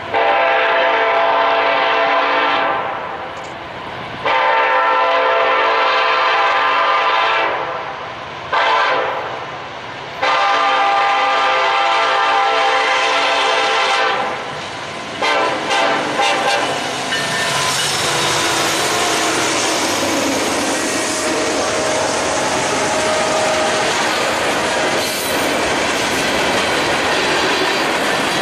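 Norfolk Southern freight train's lead EMD SD70ACe sounding its multi-note air horn in the grade-crossing pattern: long, long, short, long. After the last blast the locomotives and then loaded freight cars run past, a steady rumble of wheels on rail.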